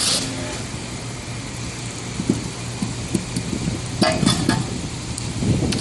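Metal parts and tools clinking and knocking during tilt-coupler repair work, a few sharp ringing clinks about four seconds in and near the end, over a steady low hum. A hiss cuts off at the very start.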